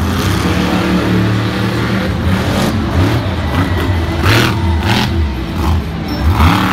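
Monster truck's supercharged V8 engine revving, its pitch rising and falling again and again, with a few short louder surges in the second half.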